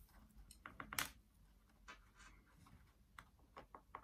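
Faint scratching and light clicks of bonsai wire being handled and wound onto a young yew branch, with one sharper click about a second in and a few quick ticks near the end.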